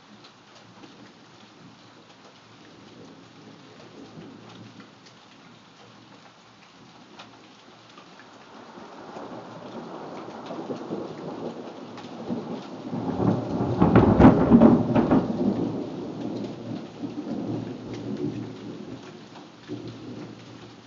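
Steady rain falling while a long roll of thunder builds, peaks loudly about two-thirds of the way through, then rumbles away over several seconds.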